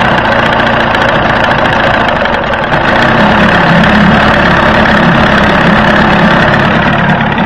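A 1981 Evinrude 35 hp two-stroke outboard idling steadily in neutral, just after a cold start, with the low end of its sound growing a little stronger about three seconds in.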